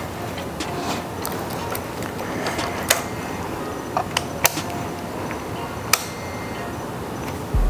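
A few sharp clicks and ticks over a steady background hiss, then the Suzuki GSX-R600's inline-four engine fires up at the very end on its first startup after the rebuild.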